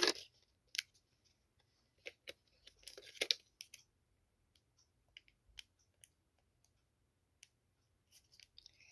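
Faint, scattered light clicks and rustles of small plastic parts being handled, from a home rapid antigen test kit, with a short burst of rustling about three seconds in.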